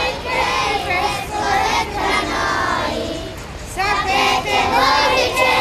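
A group of young children singing a song together, with a short break between phrases about three seconds in.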